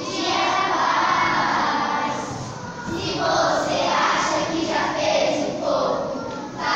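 A group of children singing a song together, in phrases with short breaks about three seconds in and near the end.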